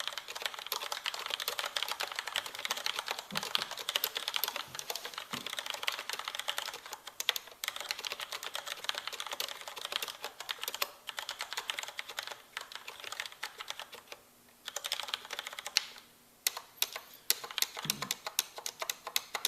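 Fast continuous typing on a Corsair Vengeance K90 mechanical keyboard with Cherry MX Red linear switches, a dense stream of key clacks. About two-thirds of the way through it pauses briefly, then goes on as sparser, separate keystrokes.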